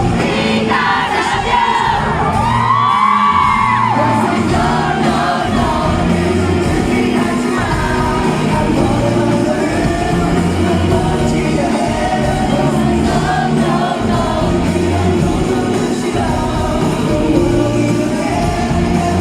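Live rock band playing with amplified electric bass, drums and a sung male lead vocal. The crowd's cheers and whoops are heard over the music.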